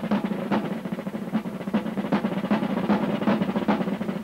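A group of drums played together in a fast, steady beat of quick strokes.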